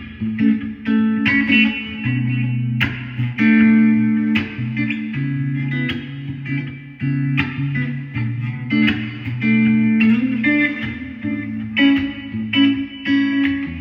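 Electric guitar played in quick picked single notes and chords over a moving line of low bass notes, going for a classic Telecaster tone.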